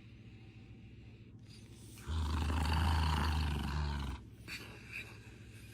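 An animal's roar or growl lasting about two seconds, starting about two seconds in, followed by a few faint clicks.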